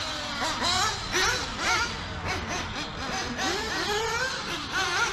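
Nitro engines of RC off-road buggies revving up and falling back again and again, several pitch sweeps overlapping each other.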